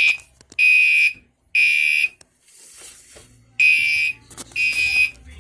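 Gentex Commander3 fire alarm horn sounding the temporal-3 evacuation pattern: a loud, high-pitched beep three times, each about half a second long, then a pause of about a second and a half before the next set of beeps starts.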